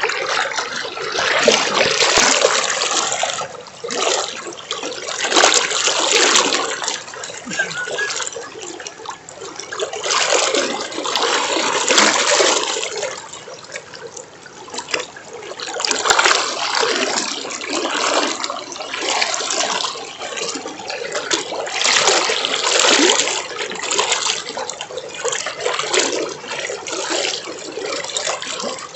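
River water rushing and splashing, a steady rush that swells and eases every few seconds.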